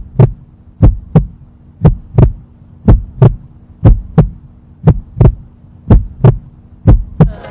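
Heartbeat sound effect: paired lub-dub thumps about once a second over a faint steady hum, a suspense effect for a face-off.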